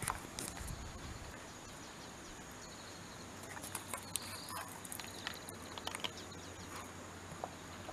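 Shiba Inu eating from a plastic bowl: faint, irregular clicks and smacks of licking and chewing.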